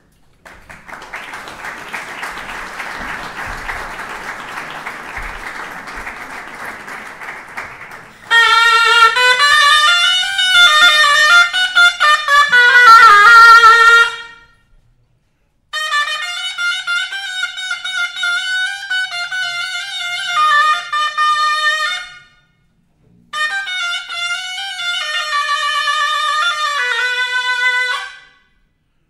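Audience applause for about eight seconds, then a Moroccan ghayta (double-reed shawm) plays alone in loud, ornamented melodic phrases. There are three phrases, broken by short pauses, and the first is the loudest.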